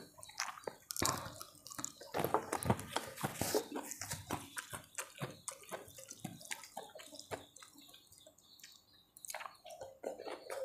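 Wet chewing and lip-smacking of a person eating a mouthful of rice and noodles, picked up close by a clip-on microphone: a dense, irregular run of small wet clicks and smacks.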